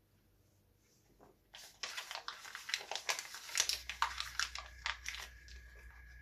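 Printed paper crinkling and tearing in rapid crackles as a folded paper picture is bitten and chewed. A faint steady hum and whine join in the second half.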